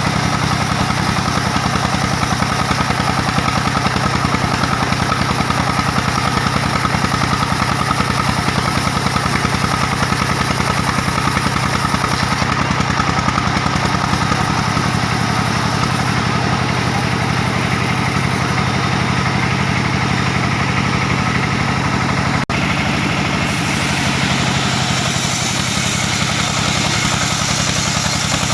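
Diesel engine driving a band sawmill, running steadily under load with an even firing beat. It breaks off for an instant about three-quarters of the way through.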